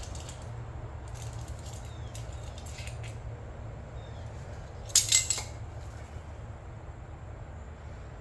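Small metal hand tools clinking and scraping against metal parts, with a short cluster of sharp, loud clinks about five seconds in. A steady low hum runs underneath.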